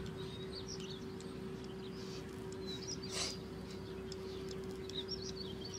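Small birds chirping in short, scattered calls over a steady low hum, with one brief rustling noise about three seconds in.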